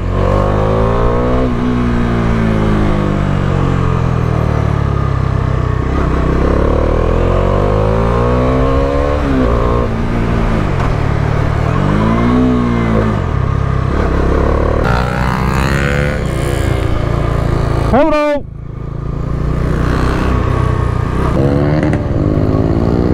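Bajaj Dominar motorcycle engine pulling and easing off again and again, its note climbing and falling several times, with wind rush over it. About eighteen seconds in the engine note drops away abruptly for a moment, then climbs again.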